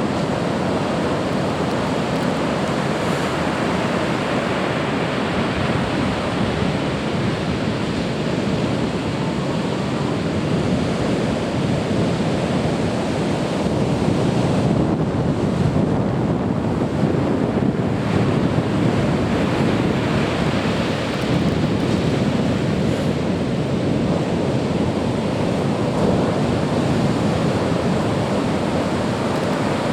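Heavy typhoon swell breaking on a sandy beach: a continuous wash of surf, a little louder about halfway through, with wind rumbling on the microphone.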